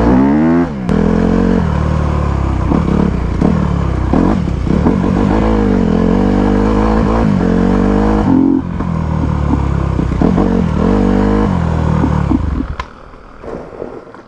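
Honda CRF250R four-stroke single-cylinder dirt bike engine running with its revs surging and sagging unevenly as it cuts out. About twelve and a half seconds in it dies, a stall.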